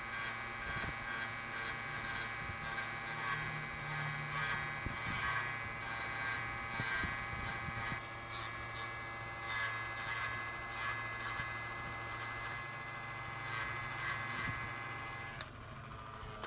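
Electric motor spinning a deburring wheel with a steady hum, while a cast silver ring is pressed against it in repeated short, hissing grinding strokes. The motor is switched off near the end.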